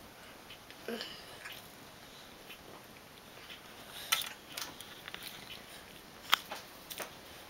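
A young child eating a boiled egg: faint mouth sounds as he licks his fingers, and a few small sharp clicks, the loudest about six seconds in.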